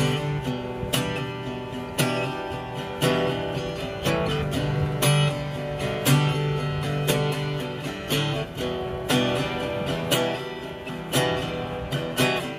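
Taylor acoustic guitar strummed in a steady rhythm, the chords ringing between strums.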